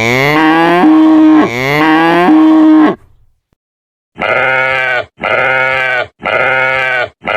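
Farm animals calling: two long calls that rise in pitch and then hold a steady note, then, after about a second's pause, short bleats repeated in quick, even succession.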